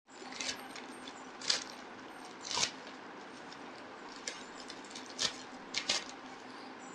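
Plastic courier mailer bag crinkling and tearing as it is pulled open by hand, in a series of short rustles.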